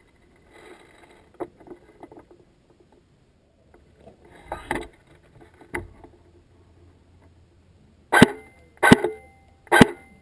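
Close-range airsoft fire: three loud, sharp knocks less than a second apart near the end. Before them come a few fainter knocks and the rustle of gear.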